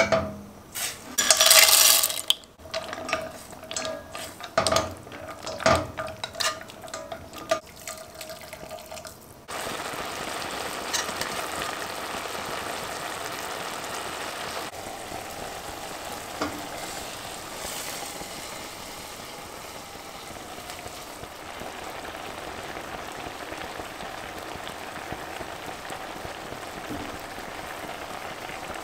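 A spoon stirring pasta in a simmering pot, with irregular clinks, knocks and scrapes against the metal pot. About ten seconds in, this gives way to a steady sizzling, bubbling hiss of the pot cooking.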